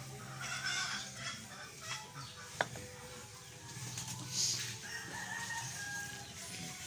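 A rooster crowing once, about five seconds in, with a single sharp click about two and a half seconds in.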